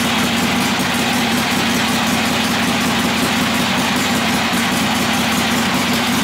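1964 Harley-Davidson Sportster XLCH's air-cooled ironhead V-twin idling steadily.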